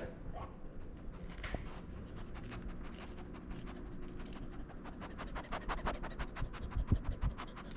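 A run of quick, dry scratching sounds, sparse at first and growing dense and rapid from about four seconds in.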